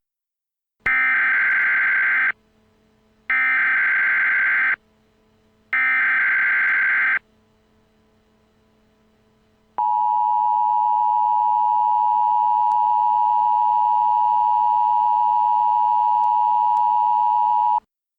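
Emergency Alert System opening signals: three bursts of SAME header data tones, each about a second and a half long and about a second apart, followed by the two-tone EAS attention signal held steady for about eight seconds. Together they mark the start of a new emergency alert broadcast.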